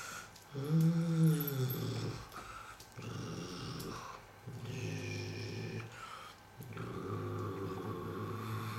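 A person's voice imitating vehicle engines for toy cars, four long low engine hums, the first rising and falling in pitch.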